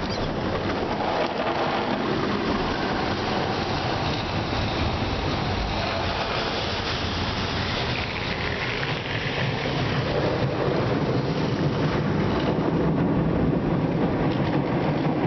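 Brushes of a Ceccato Vantage rollover car wash scrubbing over the car's windows and body, with water spraying on the glass, heard from inside the car. It is a steady, dense rush like heavy rain, which grows deeper and a little louder over the last few seconds.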